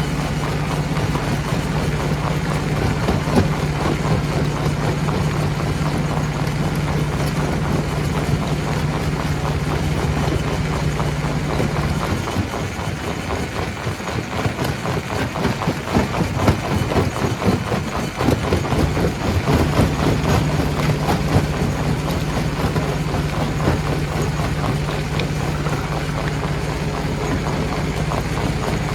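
Stone crusher machine running, with a steady low hum under constant rattling and knocking of rock. About twelve seconds in, the hum drops out for around seven seconds while the clattering turns louder and more uneven, then the hum returns.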